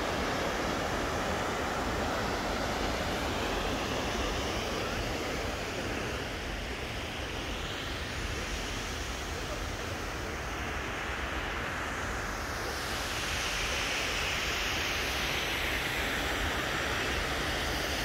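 Steady rushing noise with no distinct events, shifting slightly in tone about two-thirds of the way through.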